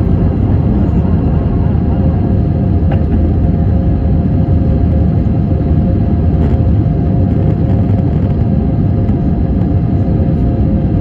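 Airbus A320-200 cabin noise during the climb after takeoff: a loud, steady rumble of the jet engines and rushing air, with a steady hum of engine tones above it.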